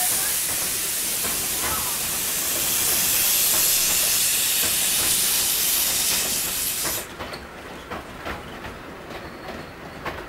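Narrow-gauge steam locomotive blowing off steam with a loud, steady hiss that cuts off suddenly about seven seconds in. After it, a passenger train runs quietly on the rails with scattered light clicks.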